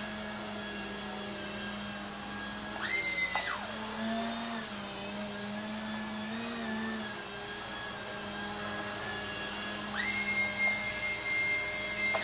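A JJRC Dusk micro RC helicopter's electric rotor motors whining steadily. The whine jumps sharply higher about three seconds in and drops back half a second later, then jumps up again about ten seconds in and holds there.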